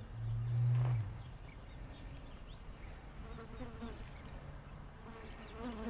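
An insect buzzing close by: a loud low buzz in the first second, then a weaker, wavering buzz that comes and goes over the last few seconds.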